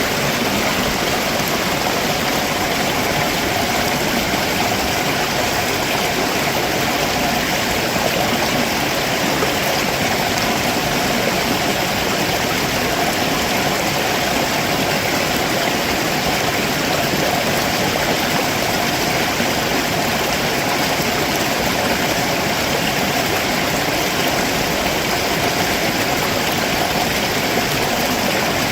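Stream water rushing steadily over rocks below a waterfall, an unbroken, even rush with no pauses.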